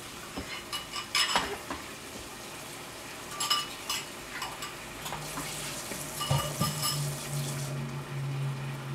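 Chicken and vegetables simmering in stir-fry sauce in a frying pan, a steady low sizzle, with a few clinks and scrapes of metal cookware and dishes. A low hum comes in about halfway through.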